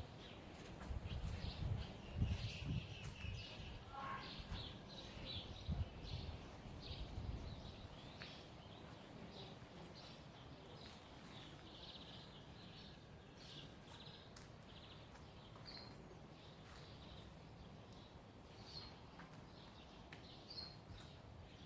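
Small birds chirping and calling in short repeated notes, faint and scattered throughout, with low rumbling noise through the first eight seconds or so.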